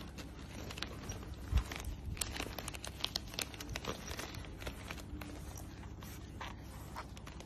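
Irregular crinkling and small clicking noises throughout, with one louder dull thump about a second and a half in.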